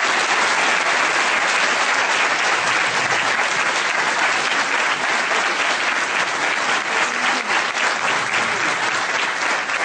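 A large seated audience applauding: many hands clapping at once in a steady, sustained round that eases slightly near the end.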